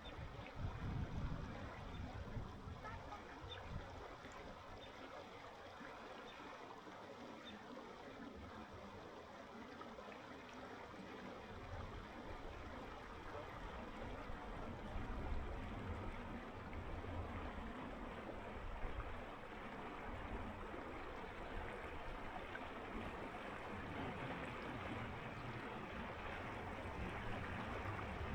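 Icy mountain river rushing over rocks: a steady wash of flowing water with a low rumble underneath, growing a little louder about halfway through.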